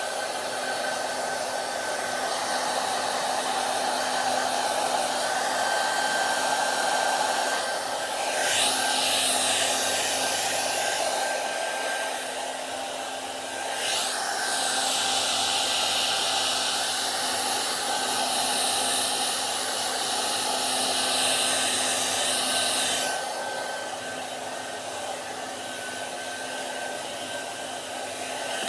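Hair dryer running continuously, a steady rush of air with a thin whine. The rush turns brighter and louder twice, about a third of the way in and again through the middle, then eases off near the end as the airflow shifts.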